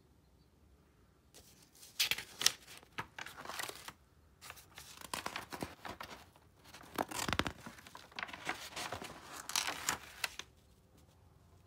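Pages of a spiral-bound sketchbook being turned by hand: the paper rustles and crackles in several bouts as the sheets bend over and slide around the wire binding, starting about a second and a half in.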